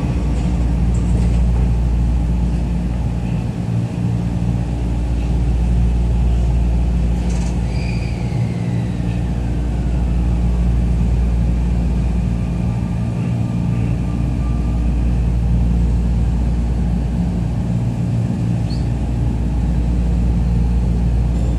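Running sound inside a Sotetsu 21000 series electric train car pulling out of a station: a steady low rumble of the motors and wheels on the rails, with a fainter whine that falls in pitch about eight seconds in.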